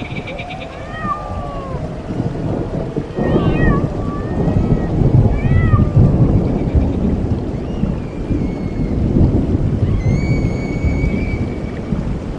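Rolling thunder and rain making a heavy low rumble that swells about three seconds in. Short high wavering calls rise and fall over it through the first half, and a thin held whistling tone sounds near the end.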